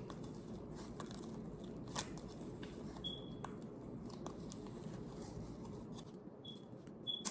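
Homemade slime being kneaded and pulled by hand, giving soft sticky crackles and scattered faint clicks over a steady low room hum.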